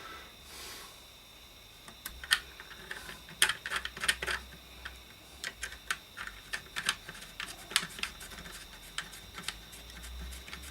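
Irregular small clicks and taps, several a second, starting about two seconds in: small parts being handled and fitted on the radio's case and chassis.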